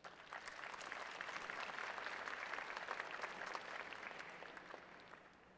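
An audience applauding. The clapping starts at once, builds, then tapers away over about five seconds.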